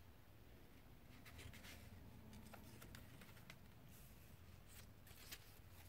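Near silence, with the faint rustle and a few soft ticks of a paper instruction booklet's pages being handled and turned.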